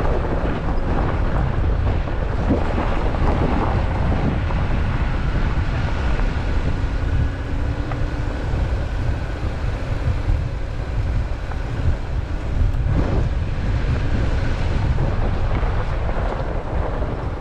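Wind buffeting a vehicle-mounted camera's microphone over the low rumble of an off-road vehicle driving along a dirt trail. The rumble is loud and steady.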